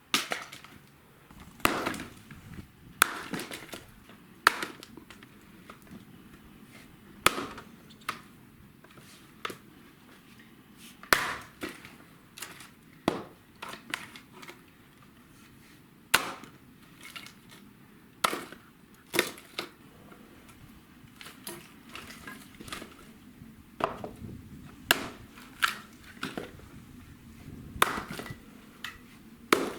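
Irregular sharp knocks, one every second or two, some in quick pairs.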